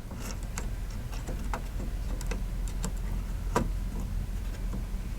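Scattered small clicks and taps of computer parts being handled and fitted on a test bench, one sharper click about three and a half seconds in, over a steady low hum.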